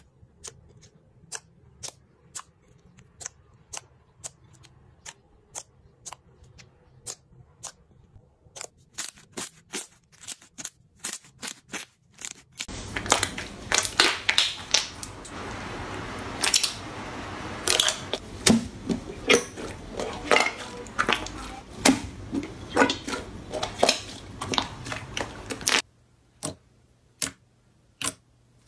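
Slime squeezed and pressed by hand, giving sharp clicks and pops about twice a second. A little before halfway this changes to a louder, denser crackling hiss as white fluffy slime is pulled and torn apart; near the end it returns to sparse clicks from pink slime pressed under the fingers.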